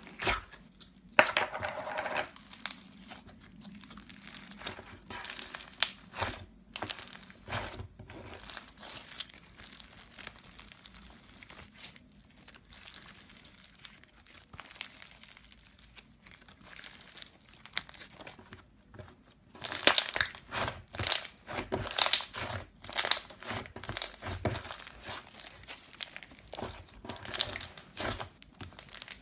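Slime being squeezed and worked by hand, giving a run of irregular crackling clicks and pops, denser and louder from about two-thirds of the way in.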